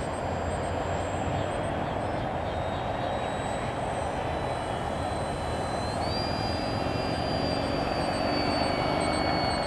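Electric motor and propeller of a Durafly 1100mm Corsair RC model plane in flight. A steady rushing drone carries a thin high whine that steps up about six seconds in and then slides slowly down, and the sound grows a little louder near the end as the plane comes close.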